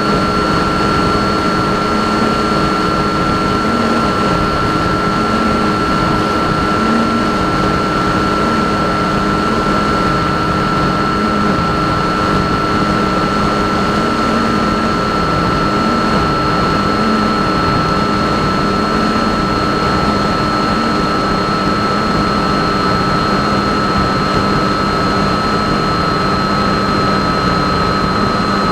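RC plane's motor and propeller running with a steady high whine over a rushing noise; the pitch sags slightly near the end.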